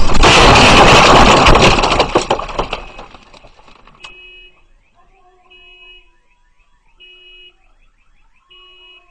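Gas explosion blast already at full loudness, a loud noisy rumble with crackles that fades away over about three seconds. About four seconds in, an alarm starts sounding, a short beeping phrase repeated roughly every second and a half.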